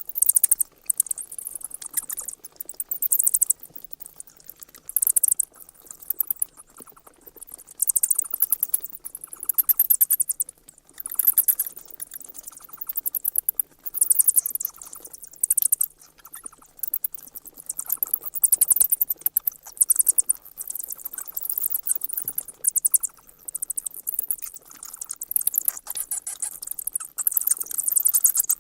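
Bats squeaking: clusters of rapid, very high-pitched chirps and clicks, each lasting about a second and coming every second or two.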